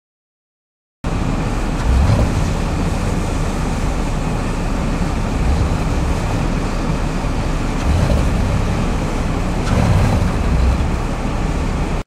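Strong wind blowing across the microphone: a loud, steady rush of noise with deep rumbling gusts every two to three seconds, starting abruptly about a second in.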